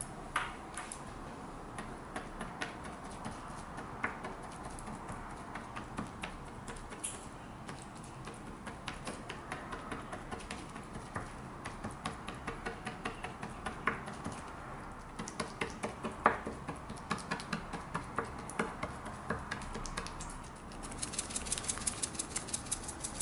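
Kitchen handling sounds as raw boneless chicken thigh is prepared on a cutting board: scattered sharp taps and clicks, at times about three or four a second. Near the end comes a fast run of crisp clicks as black pepper is ground over the chicken.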